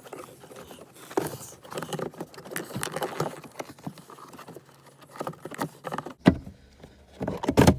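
Hard plastic under-dash air duct of a 1999 Ford F-150 being wiggled and pulled out: irregular scraping, rattling and clicking of plastic against the dash, with a sharp knock about six seconds in.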